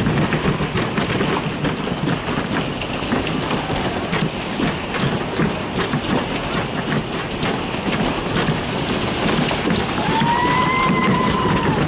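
The Whip amusement ride's cars rumbling and rattling around their track, with a squeal that rises and falls about ten seconds in.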